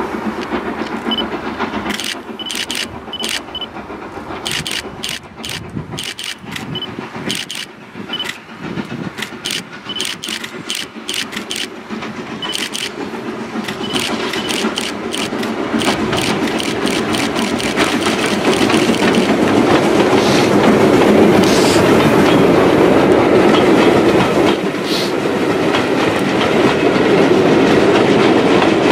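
Steam locomotive working hard with a passenger train, a steady rhythm of sharp exhaust beats as it approaches. As it draws near the sound grows louder, and the coaches rumble past with their wheels clicking on the rails.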